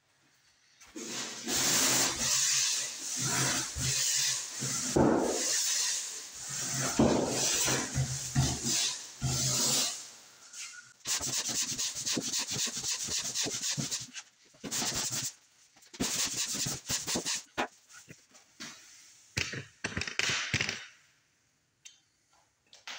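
Drywall pole sander scraping back and forth over dried joint compound on the ceiling and upper wall. The strokes run in a series, quicker for a few seconds around the middle, and stop about two seconds before the end.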